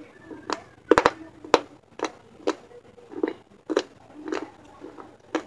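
Close-up crunching of a piece of baked terracotta clay pot being chewed between the teeth: a steady series of sharp, gritty crunches, about two a second.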